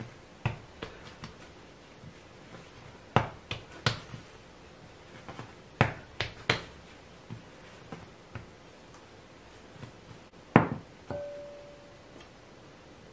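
Bread dough being pressed, folded and knocked by hand on a floured wooden board: scattered soft thumps and knocks, several close together a few seconds in. Near the end a glass bowl is set down with a loud knock and rings briefly.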